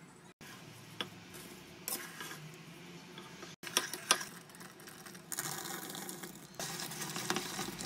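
A wooden spoon stirring in a stainless steel saucepan: a few sharp knocks against the pot, loudest about four seconds in, then a dense, rustling scrape as chopped nuts are stirred through the thick caramel mixture.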